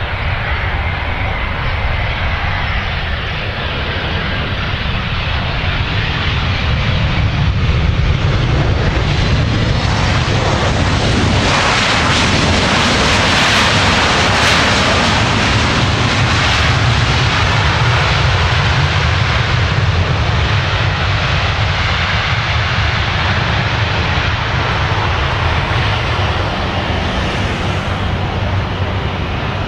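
Boeing 737-500 landing: the rushing jet noise of its two CFM56-3 turbofans swells to its loudest as the airliner rolls past on the runway under reverse thrust, then eases off as it slows and rolls away.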